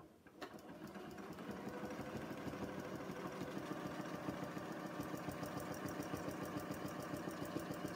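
Janome Memory Craft 6700P sewing machine stitching free-motion ruler quilting through a quilt. It starts about half a second in, speeds up over the first second or two, then runs at a fast, even stitch rate.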